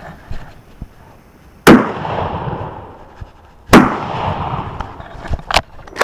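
Two shotgun shots about two seconds apart, each trailing off in a long echo, followed by a few smaller clicks near the end.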